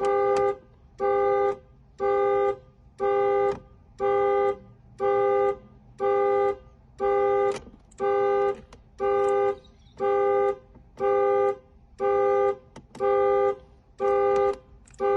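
Electronic warning chime beeping over and over at a steady pace, about two short beeps a second.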